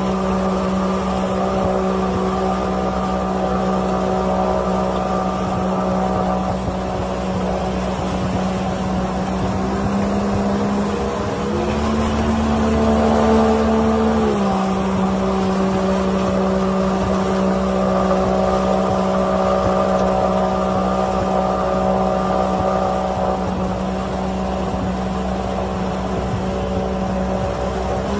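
Heavy truck engine running at steady revs while fording a deep river, over the rush and splash of water. The revs rise in two steps about ten seconds in, hold for a few seconds, then drop back.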